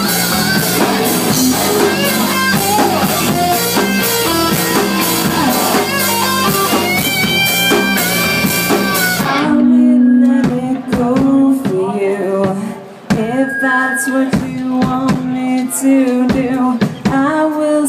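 Live rock band: electric guitar and drum kit playing loud and dense, then dropping out suddenly about nine seconds in to a sparser passage of held bass notes and scattered hits, with a singer's voice over it.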